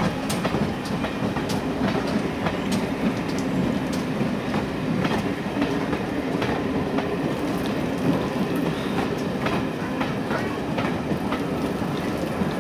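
Steam-hauled train running past on the track: a steady rumble of locomotive and coach wheels, with irregular sharp clicks of wheels over rail joints.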